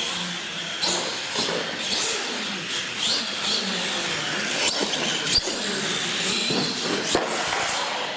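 R/C monster trucks' electric motors and gearboxes whining, rising and falling in pitch as they throttle up and down, with tyres rushing on the concrete floor. Three sharp knocks in the second half, as trucks land or tumble onto the floor.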